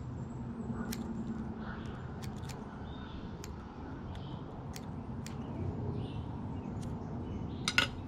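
Small fly-tying scissors snipping excess moose-mane wing fibres at the hook: light, sharp clicks every second or so, with a louder double click near the end, over a low steady hum.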